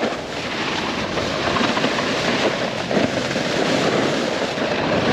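Snowboard running over snow: a continuous rough scraping and rumbling from the board's base and edges.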